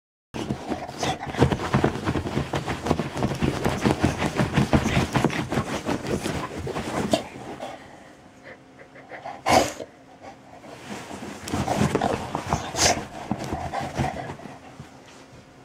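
A shar-pei breathing in rapid pants for about seven seconds, then more quietly, with one sudden sharp sound about halfway through and another stretch of louder breathing near the end.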